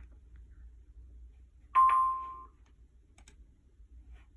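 A single short electronic chime near one pitch, about two seconds in: it starts sharply and fades out within about a second. A couple of faint clicks follow.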